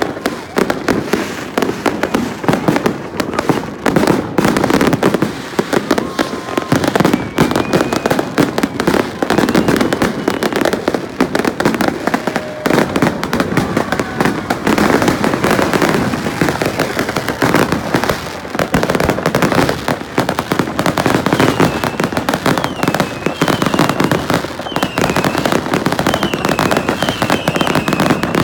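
Many consumer fireworks and firecrackers going off at once: a dense, continuous crackle of pops and bangs. High, wavering whistles come through near the end.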